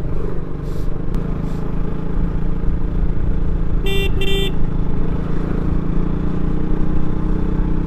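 KTM RC motorcycle's single-cylinder engine running steadily while it is ridden, with a horn beeping twice in quick succession about four seconds in.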